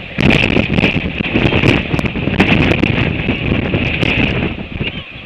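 Very strong gale-force wind buffeting the microphone in loud, uneven gusts, with a steady high hiss over the rumble.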